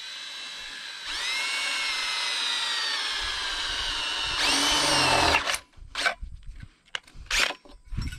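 Cordless DeWalt drill driving screws through a metal post-base bracket into a wooden 4x4 post: a motor whine that grows louder about a second in and sags slightly in pitch as the screw bites, runs harder and higher about four and a half seconds in, then stops. A few short knocks follow.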